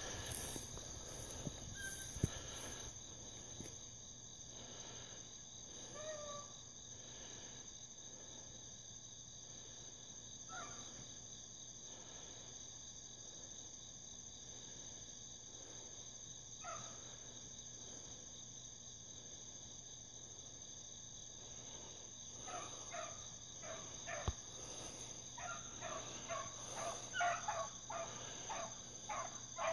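Steady, high-pitched chorus of night insects. Hounds bark a few times far off at first, then more and more often in the last several seconds as the pack runs a track.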